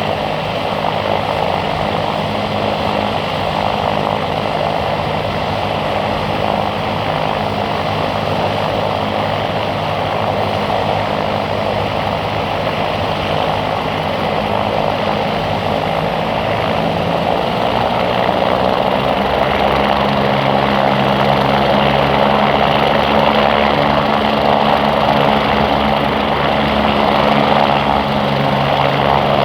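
BK117 twin-turbine helicopters running steadily, with a steady engine and rotor hum that grows louder about two-thirds of the way through.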